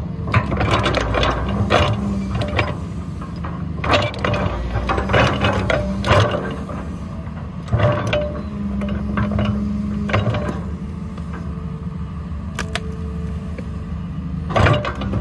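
Excavator's diesel engine running steadily while it works, with irregular metallic clanks and rattles of the bucket and material every second or two.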